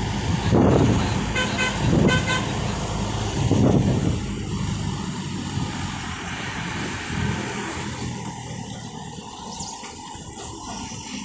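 Car driving on a hill road with the window open: road and wind noise, surging loudly in gusts for the first few seconds, then settling steadier and quieter. A vehicle horn sounds two short pulsing blasts about a second and a half in.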